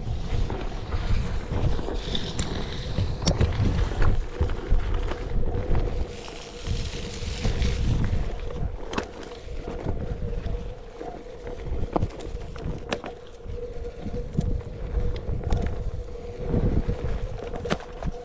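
Onewheel electric board rolling fast down a dirt trail: wind buffeting the microphone and tyre rumble over the dirt, under a steady hum from the hub motor, with scattered sharp clicks.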